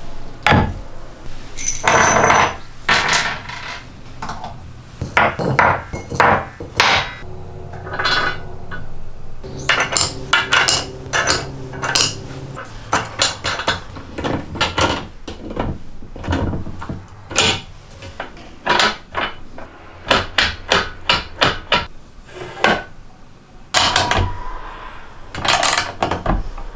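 Workshop assembly sounds: many separate sharp knocks and clicks as wooden blocks and parts are set down on a wooden workbench, with bolts and washers clinking and a ratchet wrench tightening hex bolts into a wooden block.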